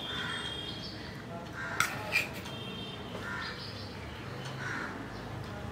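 Crows cawing repeatedly, a harsh call about every second and a half. About two seconds in, a spoon clinks twice against a steel serving bowl.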